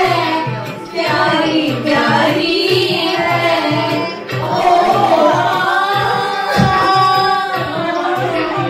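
Background music: a song with a singing voice over a steady drum beat.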